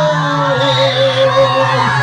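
Live music with a singing voice holding long, slowly bending notes.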